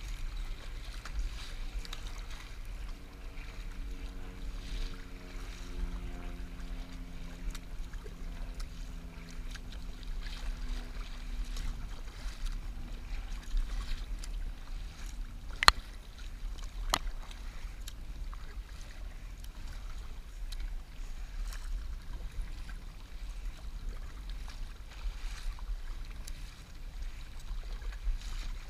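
Kayak paddle blades dipping and splashing stroke after stroke, with choppy water slapping against the hull of a KXOne Slider 410 inflatable kayak and wind on the microphone. Two sharp knocks a little over a second apart about halfway through.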